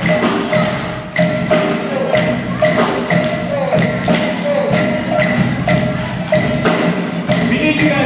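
Street band percussion groove with hand clapping: a steady beat of about two strokes a second, each stroke with a ringing struck tone, with tambourine and drums. Sliding pitched notes come in near the end.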